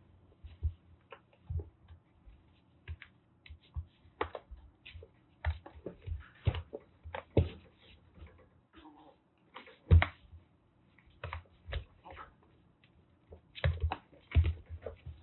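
Kittens scuffling and playing on a hard floor: irregular taps, scrabbles and soft thumps, a few thuds louder than the rest, getting busier near the end.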